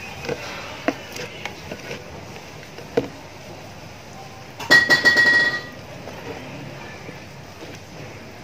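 Stainless-steel tongs clicking and knocking against a plastic tub as marinated duck is lifted out, a few sharp taps in the first three seconds. About halfway through, a loud, steady, buzzy tone lasts about a second.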